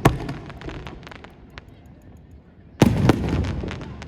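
Aerial fireworks shells bursting: a loud bang right at the start trailing into crackling, then two more bangs close together about three seconds in, with crackling that fades out.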